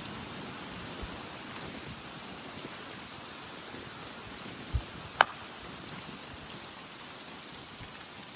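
Steady wind noise buffeting the microphone, with a short low thump and then a single sharp crack about five seconds in: a slowpitch softball bat hitting the ball.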